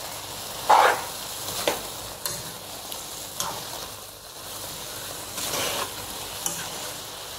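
A spatula stirring drumstick pieces and crushed coconut in a cooking pan over a steady low sizzle, with a few uneven scraping strokes, the first one the loudest.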